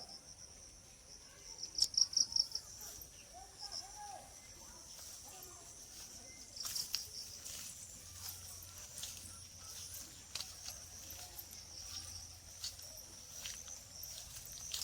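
Outdoor garden ambience of insects chirping in a steady high-pitched trill. A louder run of rapid pulses comes about two seconds in and again around seven seconds, with scattered faint clicks and calls underneath.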